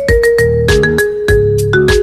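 Ringtone music: a melody of held, bell-like notes stepping down in pitch over a beat and a bass line.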